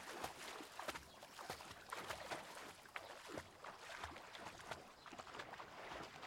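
Water splashing in a swimming pool as a swimmer kicks at the surface: a quiet, irregular run of short splashes and lapping.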